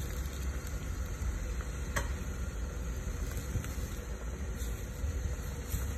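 Jeep Wrangler engine running at a low crawl, a steady low rumble under a rough hiss of tyres on dirt and dry leaves as it creeps down a rutted trail. There is one sharp click about two seconds in.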